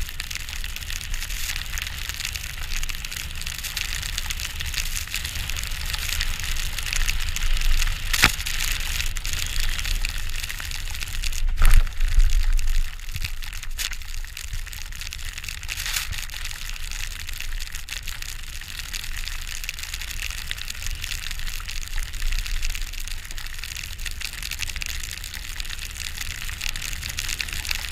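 Skis running through deep powder snow with a steady hiss, mixed with wind rumble on the microphone. A few sharp knocks break in, the loudest about twelve seconds in.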